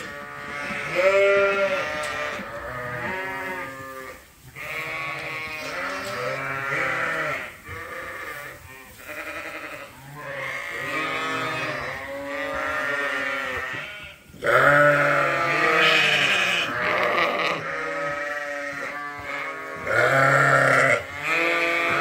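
A flock of Suffolk ewes and lambs bleating, many calls overlapping one after another, some low-pitched and some higher.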